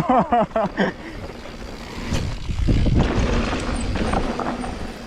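Mountain bike ridden over rough ground: a loud, steady rumble of tyres and rattling with scattered knocks from about two seconds in, after a short call from a voice at the start.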